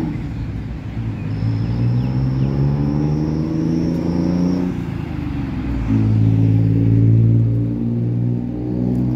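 Road traffic: motor vehicle engines passing close by, one engine's note rising as it accelerates over the first few seconds, then a louder, deeper engine note from about six seconds in.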